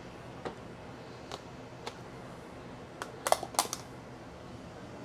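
Light clicks and knocks of plastic kitchen containers being handled, a few spaced about a second apart, then a quick cluster of louder clacks a little past halfway.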